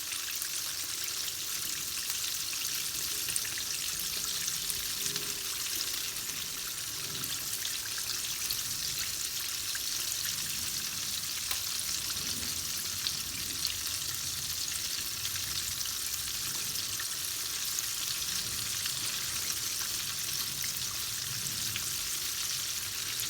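Flour-coated chicken drumsticks deep-frying in hot vegetable oil in a wok, a steady crackling sizzle with a few faint clinks as the pieces are turned.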